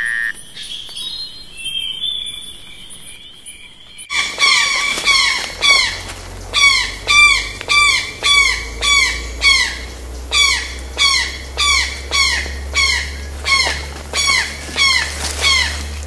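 Faint tail of title-card music fades out. About four seconds in, an animal starts a rapid, even series of short squeaky calls, about two a second, each dipping and then rising in pitch, which the uploader takes for crickets.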